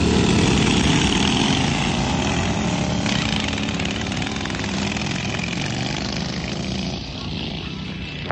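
Racing lawn mower engines running hard, loudest at first and fading gradually, dropping off further about seven seconds in.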